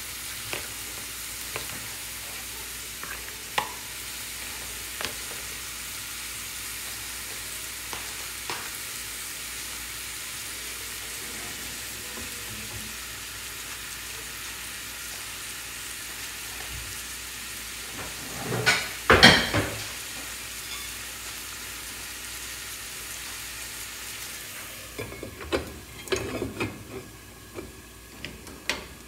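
Curried chicken feet sizzling steadily in a frying pan, with a few light clinks. A loud clatter comes just past the middle. Near the end the sizzle turns quiet and muffled as a metal lid is set on the pan, with a few knocks and clinks.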